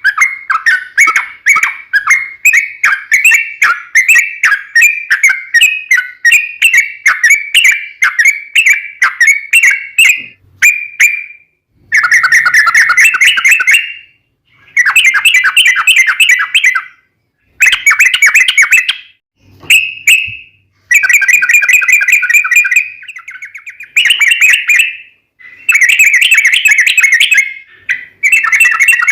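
Yellow-vented bulbul (trucukan) singing loudly. It starts with a quick string of short, clear notes, about three or four a second. About ten seconds in, it switches to long, dense, bubbling chattering phrases of roughly two seconds each, broken by short pauses. This is the long rolling 'ropel' song that keepers play to get other bulbuls to answer.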